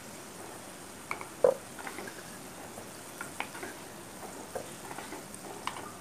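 Garlic cloves sizzling softly in hot sesame oil in a clay pot, with scattered light knocks and scrapes as a wooden slotted spoon scoops them out; one sharper knock about a second and a half in.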